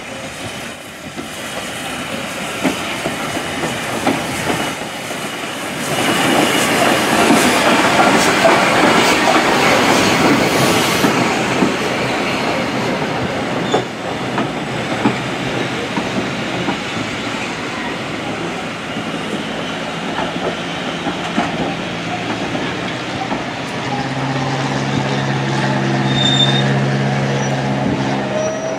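S&DJR 7F 2-8-0 steam locomotive No. 53809 running into the station with a train of coaches. It is loudest for several seconds as the engine comes by, then the coach wheels click over the rail joints as the coaches roll past. Near the end a steady wheel squeal sounds as the train slows, falling in pitch at the very end.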